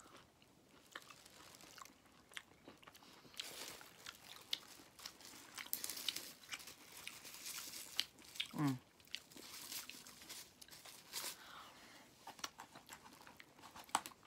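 Close-up chewing and crunching of KFC fried fast food: many small, sharp bites and mouth clicks, at a low level. A short voiced sound of falling pitch, like a hum, comes about nine seconds in.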